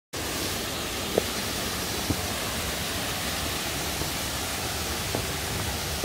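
Waterfall cascading over granite boulders into a deep pool: a steady rush of falling water, with a few brief sharp clicks over it, the loudest about a second in.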